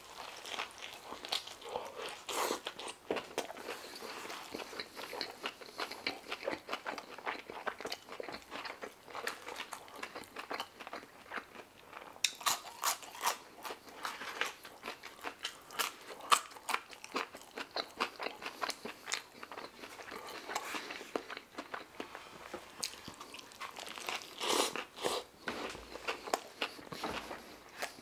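Close-miked chewing and lip smacking of a shawarma wrap, a steady run of short, wet mouth clicks.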